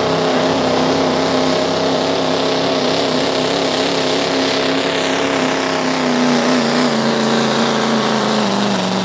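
Ford Super Duty pickup's turbo-diesel engine running flat out, pulling a sled. The engine note holds steady, then slowly drops in pitch over the last few seconds as the sled drags the engine down.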